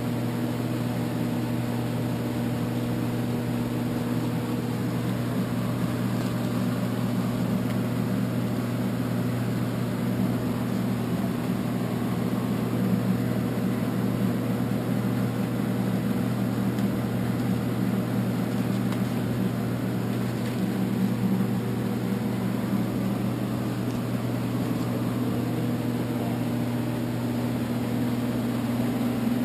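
Steady machine hum with a low drone, unchanging throughout.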